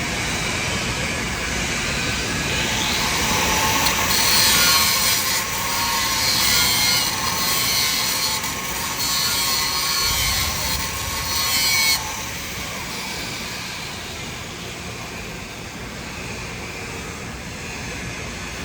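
TIG (argon) welding arc on a steel pipe joint, a loud hiss with a faint whine that starts about four seconds in and cuts off suddenly about twelve seconds in as the arc is broken. A steady machine hum runs underneath throughout.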